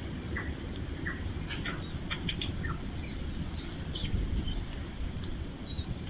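Small birds chirping: a quick run of short, sharp chirps in the first three seconds, then a few higher, fainter ones later, over a steady low rumble.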